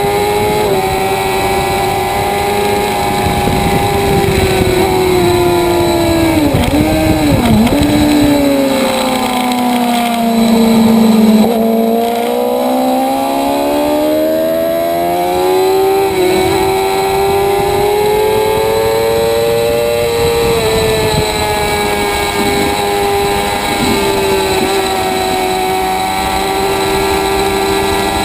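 Sport motorcycle engine at high revs on a racetrack. Its pitch dips and blips several times as it slows for a corner, sinks to its lowest near the middle, then climbs steadily as it accelerates out.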